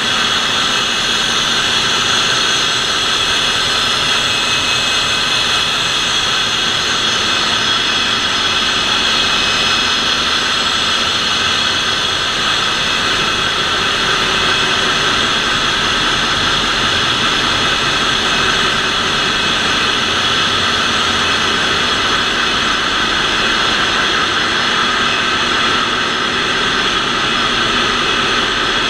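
Ship's engine-room machinery running: a loud, steady din of diesel engines with a constant high whine layered over it.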